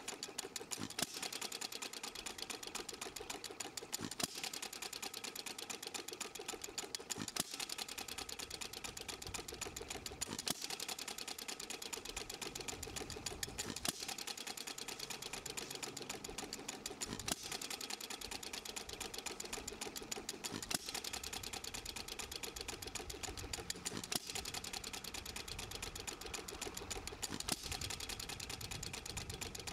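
Stuart Little Major hit-and-miss engine running: a fast, steady clatter of its valve gear and spinning flywheel, with a louder crack about every three seconds as it fires and then coasts.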